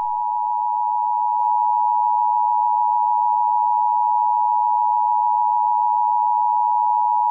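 Emergency Alert System attention signal: a loud, steady two-tone electronic beep, the 853 and 960 Hz pair sounded together, held without a break.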